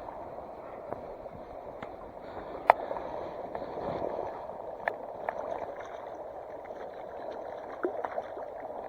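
Steady rushing of flowing water, with a few sharp clicks scattered through it.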